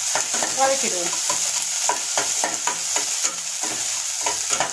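Crushed shallots and garlic sizzling in hot coconut oil in a kadai, with a spatula scraping and tapping the pan about three times a second as they are stirred.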